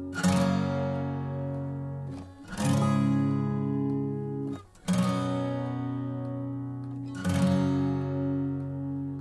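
Background music: an acoustic guitar strumming slow, ringing chords, a new chord struck about every two seconds.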